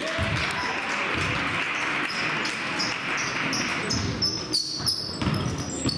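Basketball game sounds on a gym floor: sneakers squeaking repeatedly and the ball thudding as it bounces. Crowd noise fills the first four seconds, then drops off.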